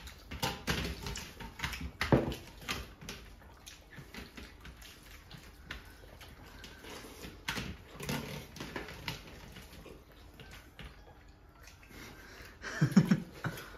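Close-up sounds of people eating rice and chicken curry by hand: wet chewing, lip-smacking and squelching of fingers mixing rice and gravy on steel platters, heard as many short, irregular smacks and clicks. A short, louder vocal sound, such as a grunt, comes near the end.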